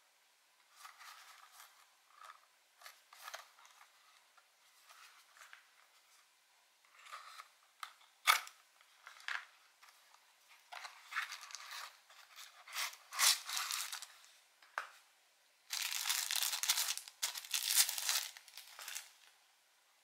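Small cardboard box being handled and opened: scattered rustling and scraping of card, a sharp tap about eight seconds in, and a longer, louder spell of rustling near the end as its contents are taken out.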